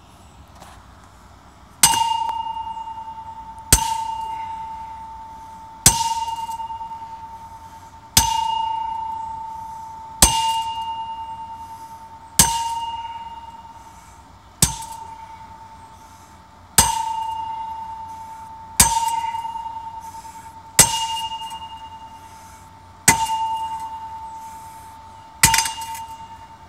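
An 8 lb sledgehammer striking the top of a steel T-post fence post about a dozen times, roughly once every two seconds, driving it into the ground. Each blow is a sharp metallic clang, and the post rings on with a clear tone that dies away before the next blow.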